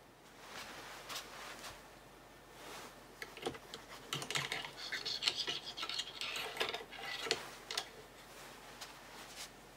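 A cleaning patch being run through the steel gas tube of an M1 rifle: scratchy rubbing with small metal clicks, busiest from about three to eight seconds in.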